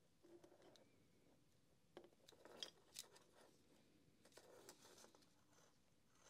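Faint handling noise: a few small clicks and rustles as hands work the heat gun's plastic motor housing and its wires, against near silence.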